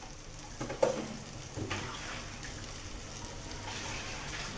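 Kitchen tap running steadily into the sink, drawing water to add to the pot, after a brief knock about a second in.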